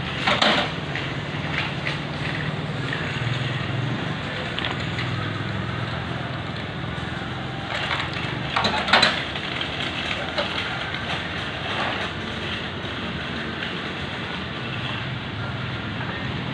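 Hand-pushed thermoplastic road-marking applicator at work, its heated kettle and burner giving a steady low hum with a hiss. Two louder short bursts come about half a second and nine seconds in.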